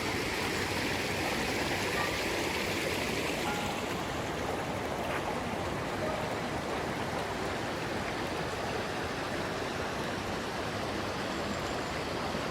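Steady rush of a flowing stream, with a few faint brief chirps over it.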